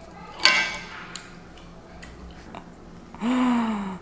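A woman eating: a short sharp mouth sound about half a second in, then a few faint small clicks, and near the end a wordless vocal sound from her, under a second long, falling in pitch.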